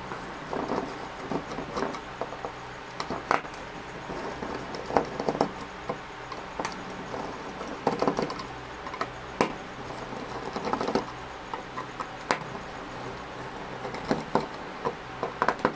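Phillips screwdriver backing out the small screws that hold a Bluetooth speaker's front panel: scattered light clicks and scrapes of the metal tip in the screw heads and on the plastic, over a faint steady hum.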